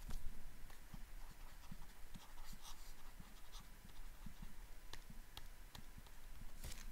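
Faint scratching of a stylus writing by hand, with scattered light taps and clicks as the strokes are made.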